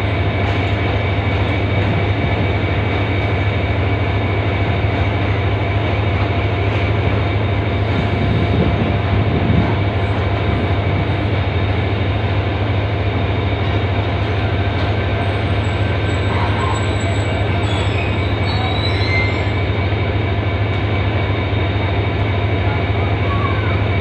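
Diesel engine of a standing passenger train idling steadily, with a constant hum and several held tones and no change in level.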